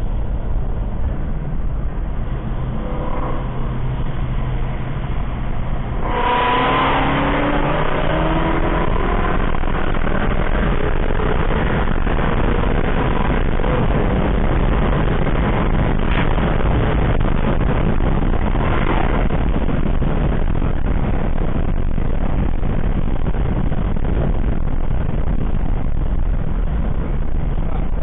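Procharged Shelby GT350's 5.2L Voodoo V8 running, then about six seconds in going to a hard pull, its pitch rising steadily for several seconds before settling into a loud, even noise.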